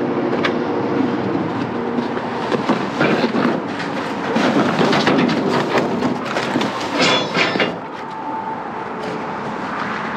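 Objects being rummaged through and shifted in a dumpster, a continuous clatter and rattle of many small knocks as things are moved and fall out, with a few bright ringing clinks about seven seconds in.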